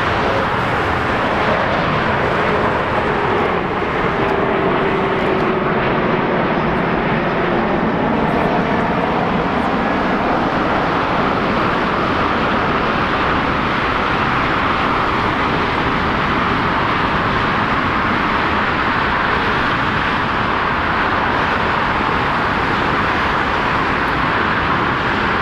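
Jet aircraft engine noise, steady throughout, with a faint whine that falls slightly in pitch a few seconds in.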